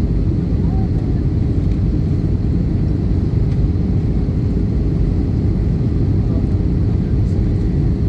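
Airbus A320 cabin noise in flight: a steady low rumble of engines and airflow with a faint, constant hum above it.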